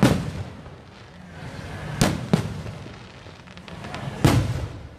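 Aerial fireworks bursting: a loud bang at the start, two more close together about two seconds in, and another just past four seconds, each trailing off in a rumbling echo, with a few small cracks in between.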